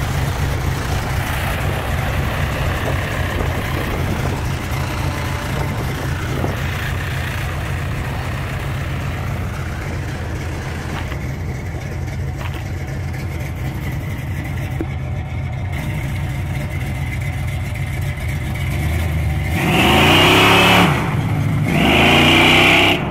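Classic Chevrolet Chevelle's engine idling with a steady, deep rumble, then revved hard twice in quick succession near the end as the car pulls away.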